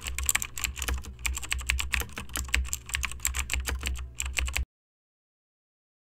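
Keyboard typing sound effect: rapid, irregular key clicks, cutting off suddenly about four and a half seconds in.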